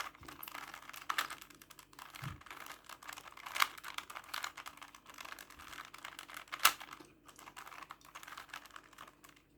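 Rubik's cube layers being twisted by hand: irregular plastic clicking and clacking, with a few louder sharp clacks among them.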